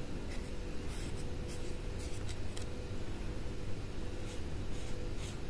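Cotton cleaning swab rubbing along the edge of a mirrorless camera's exposed image sensor: soft, scratchy strokes, several in the first two and a half seconds and a few more near the end, over a steady low hum.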